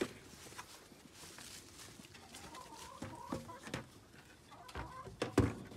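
Poultry calling faintly, a few short wavering notes in the middle, then near the end a couple of sharp knocks as a plastic five-gallon bucket is set down onto a wooden shelf mount.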